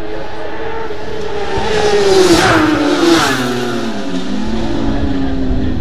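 A racing superbike passing at high speed, its engine note dropping in pitch as it goes by, loudest with a rush of sound about two to three seconds in.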